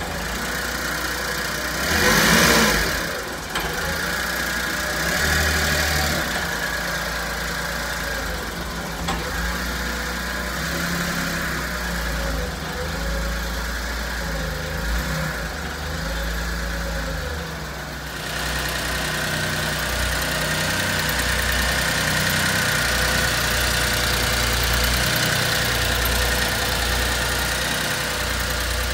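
1996 Mitsubishi Minicab kei truck's small three-cylinder engine idling steadily, with a brief louder burst about two seconds in.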